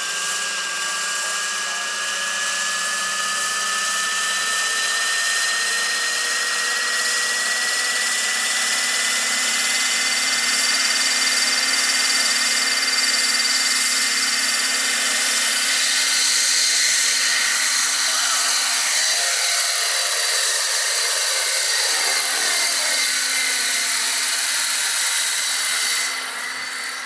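Electric motor and rotor drive of a large scale-model Eurocopter EC-135 RC helicopter running up on the ground, a high whine rising slowly in pitch over the first ten seconds or so, over the steady rush of the spinning rotor blades. The sound eases slightly about a second before the end as the model flies off.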